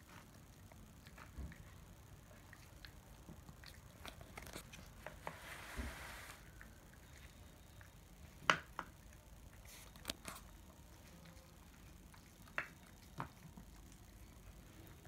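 Shih Tzu gnawing on a pig's trotter: scattered faint clicks of teeth on the trotter, the loudest about eight and a half seconds in.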